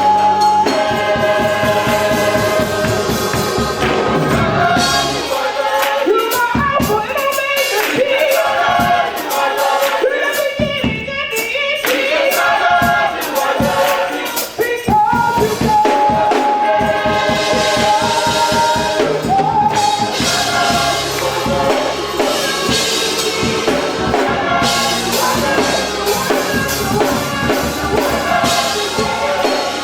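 Gospel choir singing with a drum kit and tambourine keeping a steady beat.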